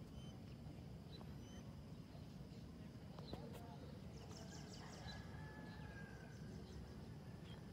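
Faint outdoor ambience: a low rumble with a few scattered short chirps of distant birds.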